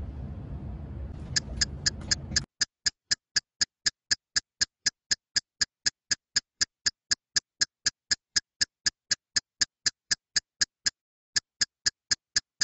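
An edited-in clock-ticking sound effect: identical sharp ticks, about four a second, starting just over a second in. The room sound cuts to dead silence a couple of seconds in, leaving only the ticks, which pause briefly near the end.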